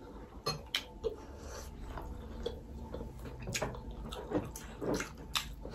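Quiet eating sounds: chewing and slurping of thukpa noodle soup, with a dozen or so short clicks and smacks at irregular moments, some of them a spoon and fork tapping a glass bowl.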